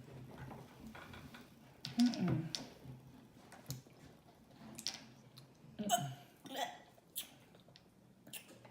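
Several short, soft burps, the loudest about two seconds in, with small clicks between them.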